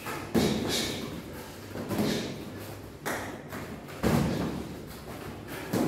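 Boxing gloves thumping during sparring: about six punches landing at irregular intervals.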